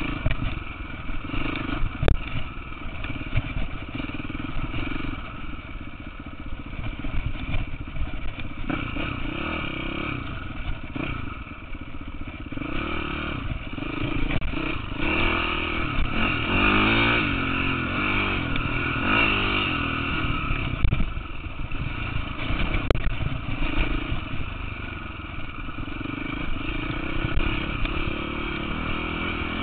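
KTM 450 dirt bike's single-cylinder four-stroke engine running while riding, its pitch rising and falling as the throttle opens and closes, with a couple of sharp knocks along the way.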